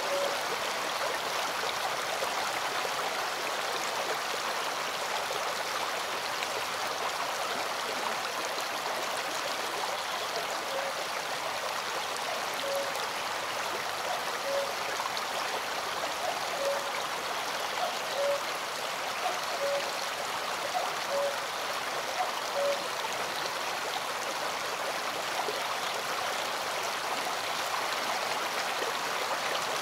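Steady rush of a small stream running over rocks. In the middle stretch, a row of short, soft low notes comes about every second and a half.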